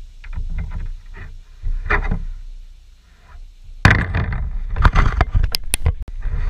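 Handling noise close to the microphone: a metal utility knife being put down, knocking and scraping on the hard cover's surface. Softer clicks and rustles at first, then a loud cluster of knocks and clicks from about four seconds in, as the knife is set down right by the microphone.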